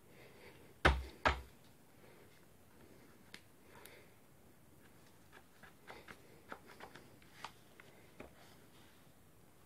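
Two sharp knocks a fraction of a second apart about a second in, then a series of light clicks and taps from the plastic housing of a cordless SDS drill being handled and pressed together by gloved hands.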